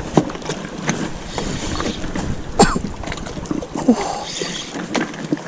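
Water lapping and slapping against a small outrigger boat's hull, with scattered sharp knocks and clicks, the loudest about halfway through.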